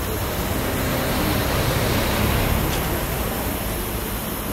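Zillertalbahn narrow-gauge steam locomotive standing in steam, giving off a steady hiss over a low rumble that swells slightly about halfway through.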